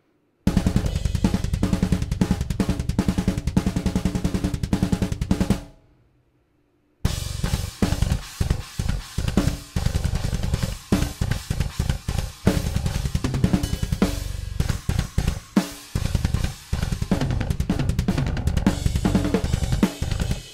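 Raw, unmixed multitrack playback of a metalcore drum kit with a DI bass guitar: fast, tight kick, snare and cymbal hits over the bass. It tails off about five and a half seconds in, stops for about a second, then starts again.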